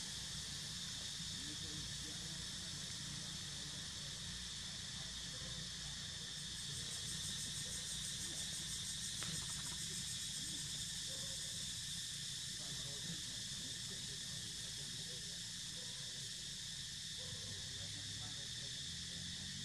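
Steady high-pitched chorus of insects droning in the trees, with a fine pulsing joining in the highest part about a third of the way in.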